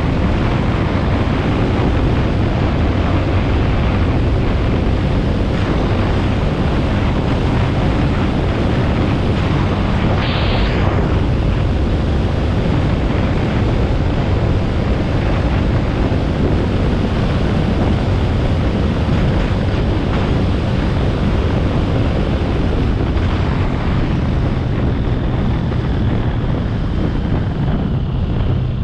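Steady rush of wind buffeting the microphone of a motorcycle-mounted action camera at highway speed, with the motorcycle's engine and tyre noise underneath. A brief hiss cuts through about ten seconds in.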